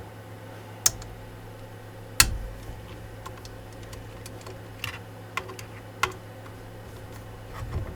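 Scattered sharp clicks and knocks of a hand tool working the screws of a CNC router's spindle clamp, with one louder knock about two seconds in. A steady low hum runs underneath.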